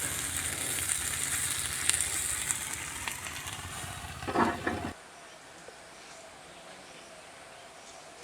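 Chicken fat sizzling as it drips onto the hot stones in the bottom of a tin-can bucket oven, a steady hiss that cuts off abruptly about five seconds in, leaving faint outdoor quiet.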